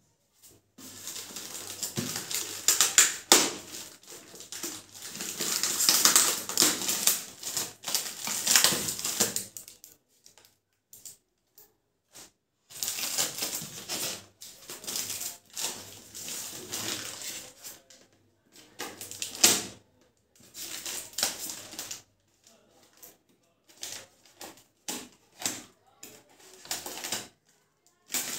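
Thin plastic packaging bag and tape crinkling and tearing as they are pulled off a fan base and pole: crackling in long bursts with short pauses, breaking into shorter bursts near the end.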